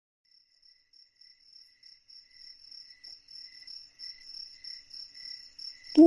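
Crickets chirping in a steady pulsing rhythm, fading in shortly after the start and growing louder.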